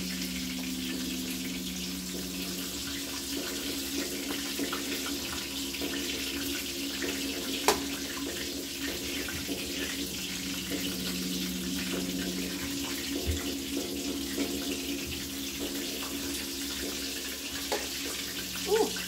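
Kitchen tap running steadily into a stainless sink, with a low steady hum underneath and one sharp click about a third of the way in.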